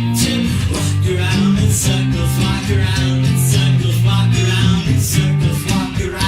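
Alternative rock band recording playing: a moving bass line and guitar, with drum and cymbal hits about every one and a half seconds.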